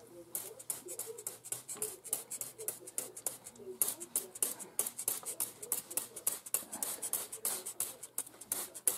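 Hand-held trigger spray bottle misting seedlings: a rapid run of short hissing squirts, several a second, with a brief pause about three and a half seconds in.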